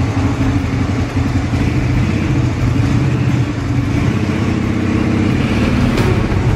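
Engine of the vehicle towing the helicopter's wheeled platform, running steadily at low revs with a throbbing note.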